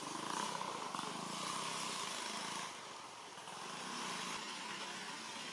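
Young macaque crying, a wavering cry loudest over the first two and a half seconds, then fainter.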